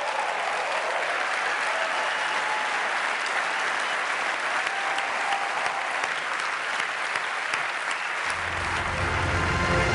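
Large audience applauding steadily, with a few cheers near the start. Music comes in near the end.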